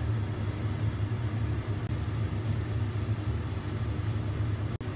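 A steady low rumbling hum, even throughout, with no distinct events.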